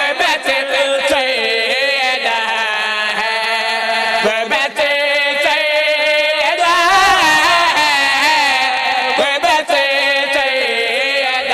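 Male voice chanting a devotional Urdu qasida through a microphone, in long, wavering held notes.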